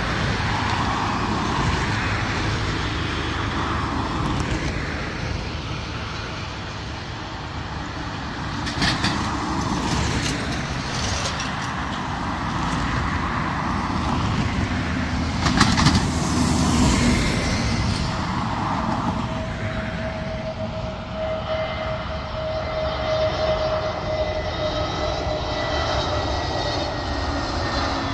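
Jet airliner engines: a broad rumble, joined in the second half by a high engine whine in several tones that grows and slowly falls in pitch. A few short loud rushes of noise come near the middle.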